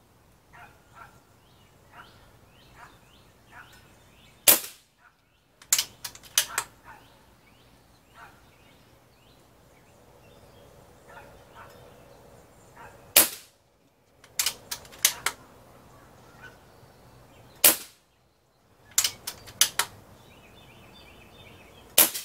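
Four shots from an Umarex Gauntlet .22 pre-charged pneumatic air rifle, each a sharp crack: the first about four seconds in, then three more about every four to nine seconds. About a second and a half after each shot comes a quick run of clicks as the bolt is worked to chamber the next pellet.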